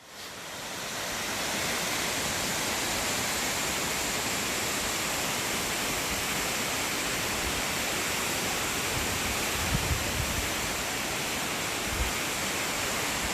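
The steady, even roar of a waterfall. A few low bumps on the microphone come near the end.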